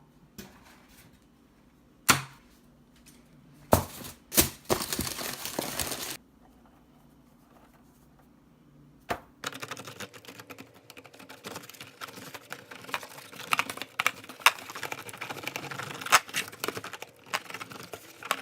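A few sharp knocks, then a short rush of noise, then dense, rapid clicking and crackling for the second half.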